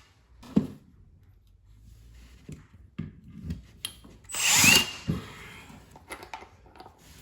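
A power drill runs in one short burst of about half a second, its whine shifting in pitch, among a few knocks and clunks of hardware work on the cabinets.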